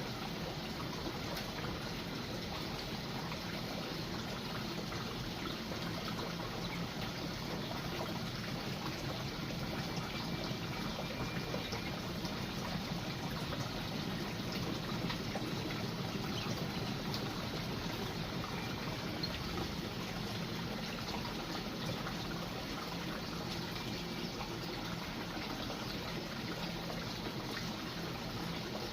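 Steady trickle of running water, with a few faint, short bird chirps now and then.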